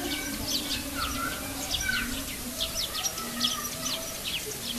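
Small birds chirping: a dense, continuous run of short chirps that each drop sharply in pitch, over a faint low murmur.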